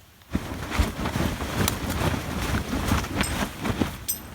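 Fabric being shaken and flapped hard: a rapid, irregular run of loud flapping snaps that starts a moment in and dies down near the end.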